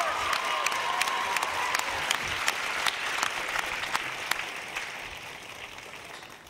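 Studio audience applauding after a live vocal performance, the clapping dying away over the last few seconds.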